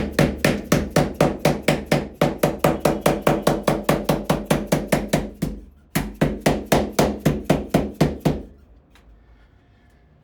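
Rapid, even tapping, about five taps a second, as the screw channel cover strip is tapped down into the groove of a window's interior trim ring. The tapping breaks briefly about six seconds in, resumes, and stops about eight seconds in.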